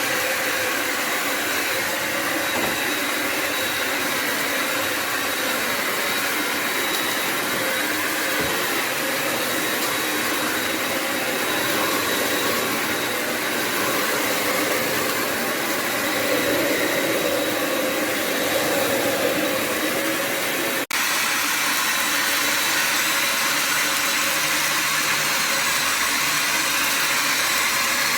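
Bissell Symphony Pet vacuum and steam mop running: a steady motor whir with rushing air. About three-quarters of the way through it breaks off for an instant and resumes with a steadier low hum.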